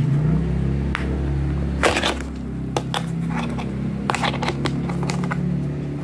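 Plastic toy kitchen play set being handled: a scattering of sharp plastic clicks and taps as its buttons are pressed and its panels opened out, with clusters about two and four seconds in, over a steady low hum.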